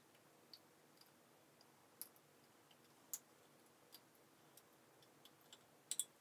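Near silence: room tone with a few faint, scattered clicks, and two louder clicks just before the end.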